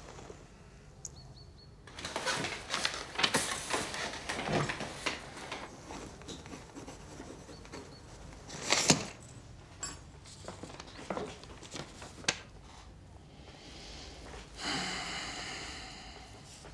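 Pencil writing on a sheet of paper: irregular scratching strokes, with a sharp click about nine seconds in.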